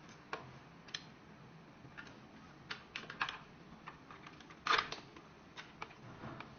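Scattered light clicks and knocks of plastic parts and screws being handled as a Dyson charging dock is fitted onto its stand, the loudest knock a little before five seconds in.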